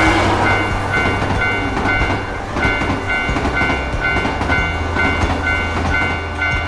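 Railroad crossing bell dinging in a steady repeating two-tone pattern, about two or three strikes a second, while a train passes with a loud rushing rumble and clatter of wheels.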